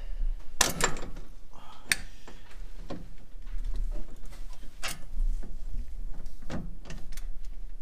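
Irregular metallic clicks and light knocks of a part and tools being handled by hand at a Jeep Gladiator's steering box, as the Pitman arm nut is threaded back on. A handful of louder clicks stand out, a second or more apart.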